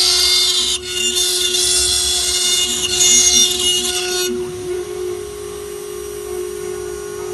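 Electric power tool working wood: a steady motor whine with a loud hissing cutting noise that stops sharply about four seconds in, leaving the motor running on with a slightly higher whine.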